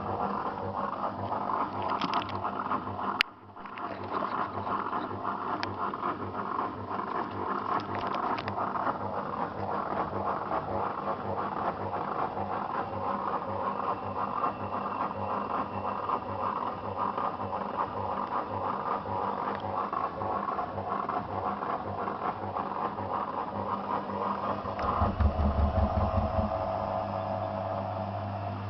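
Zanussi FL984CN front-loading washing machine running a 35° wash program, its drum turning with a steady running noise and a regular low pulsing. A sharp click comes about three seconds in, and a louder low hum swells briefly near the end.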